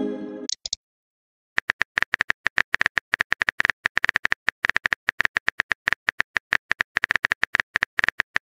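Phone keyboard typing clicks, rapid and irregular, starting about a second and a half in, with the tail of a short electronic chime fading out in the first moment.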